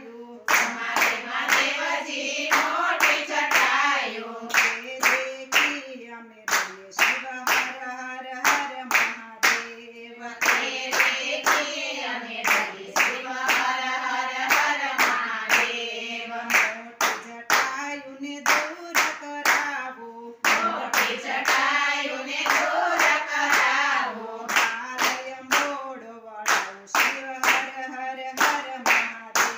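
A group of women singing a Gujarati devotional bhajan to Shiva in unison, keeping time with steady, evenly spaced hand claps.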